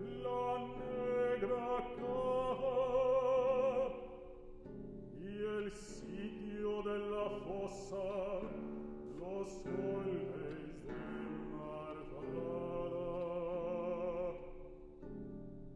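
Male baritone singing long classical notes with wide vibrato over a nylon-string classical guitar accompaniment. The voice stops near the end, leaving the guitar ringing on alone.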